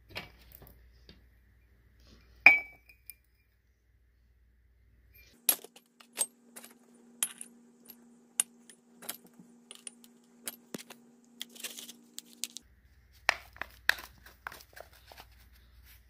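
Ceramic mugs clinking and knocking against each other and the galvanized metal tub as they are handled and filled with potting soil, with one sharp ringing clink about two and a half seconds in and a run of lighter clicks and taps after.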